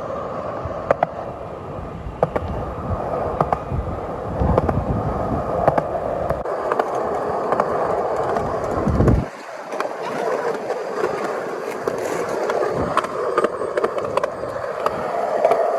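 Skate wheels rolling steadily over street pavement, with sharp clicks as they run over cracks and joints. A deep rumble under the rolling cuts off suddenly about nine seconds in.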